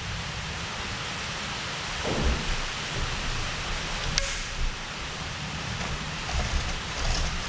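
Small handling sounds from a screwdriver and hands working a Stihl MS170 chainsaw's chain tensioner and chain: a few soft knocks and one sharp click about four seconds in, over a steady hiss.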